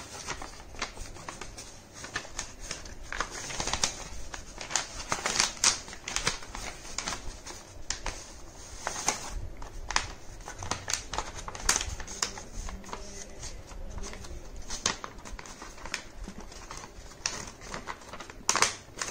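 A sheet of A4 colour paper being folded and creased by hand: irregular rustles and small crackles of the paper, with a louder crackle near the end.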